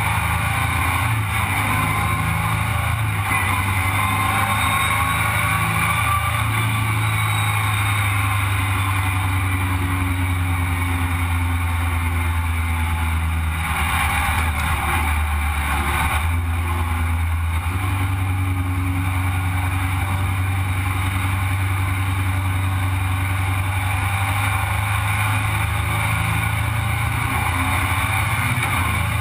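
Sandrail's engine running at road speed, heard from the open frame with rushing wind noise over it. The engine note eases off and then picks back up about halfway through.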